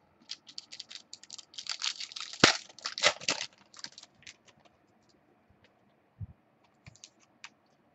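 Trading cards being handled on a desk: a quick run of clicks and crackles, densest in the first half, then a few scattered clicks and a soft thump.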